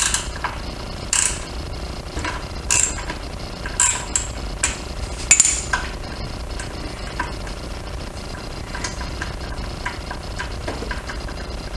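Light clicks and scrapes of a hand tool backing a screw out of a motorcycle's plastic side fairing: a run of sharp ticks in the first six seconds, then fainter ones.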